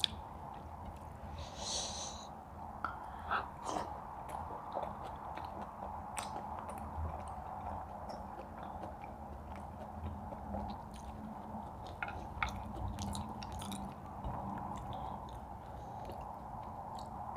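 People chewing and biting food, with scattered short clicks and crunches over a steady background hum.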